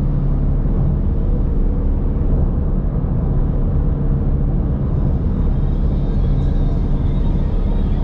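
Car driving on a freeway: steady road and engine rumble with a low hum, unchanging throughout.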